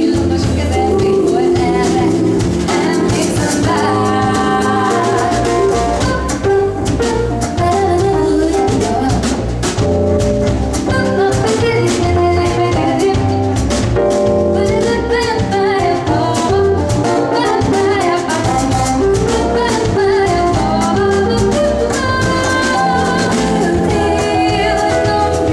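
Live jazzy pop band playing a song: female lead vocals over stage keyboard, upright double bass and drum kit.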